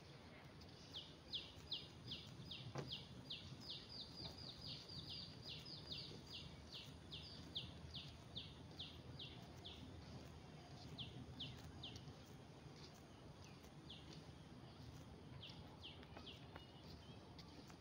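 A bird calling a long run of short, sharp notes, each dropping in pitch, about four a second, then breaking off, with a few shorter runs later; faint outdoor hum underneath.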